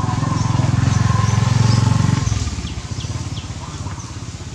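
A motorcycle engine runs close by, loud for the first two seconds, then drops off suddenly and fades. Short high chirps sound now and then over it.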